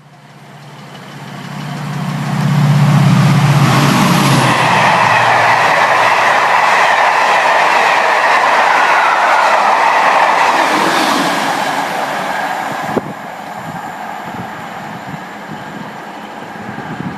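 A train passing through at speed. The wheel and rail noise builds over the first couple of seconds, stays loud for about ten seconds as the train goes by, then drops to a quieter rumble.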